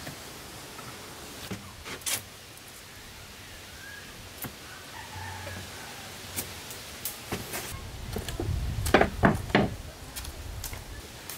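Footsteps and knocks on a wooden plank floor: scattered sharp clicks, then a run of louder, hollow thuds a little past the middle.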